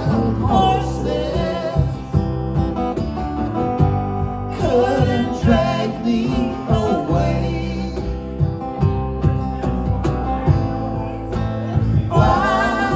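Small cover band playing live: strummed acoustic guitar, electric lead guitar and a cajon keeping the beat, with a melody line wavering in pitch partway through.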